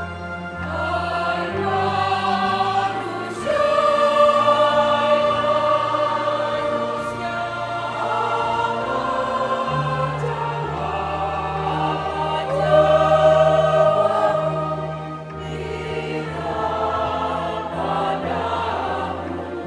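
Church choir of lay singers singing a hymn in several voices, with long held notes, over steady low accompanying notes that change every second or two.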